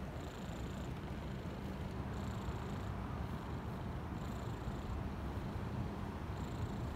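Brown tabby kitten purring steadily while being stroked, a low continuous rumble with a faint hiss returning every couple of seconds.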